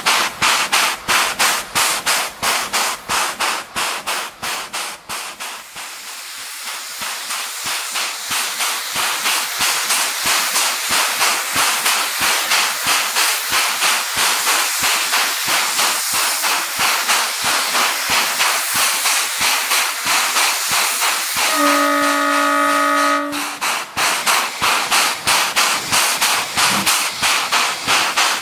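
JS class 2-8-2 steam locomotive starting a heavy loaded coal train. Rapid exhaust beats, about four a second, fade after about five seconds into a steady hiss of escaping steam with the beats faint beneath it. About 22 seconds in the whistle gives one blast of about a second and a half, and then the rapid exhaust beats come back strongly.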